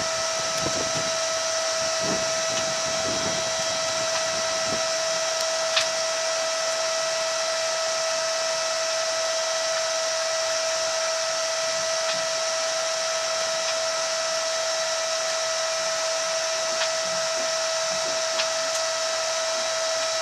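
Steady electric whine with a constant hiss inside the cabin of a driverless electric shuttle rolling at walking pace, about 1 metre per second, with a few faint clicks.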